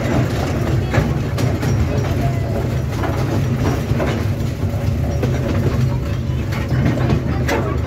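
Small park toy train running, heard from aboard: a steady low rumble with occasional clacks of the wheels on the track.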